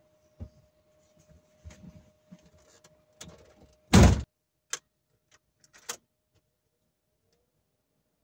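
Truck cab door slammed shut about four seconds in, after soft knocks and rustling as the driver climbs in and sits down; a faint steady tone cuts off as the door shuts, and a few sharp clicks follow.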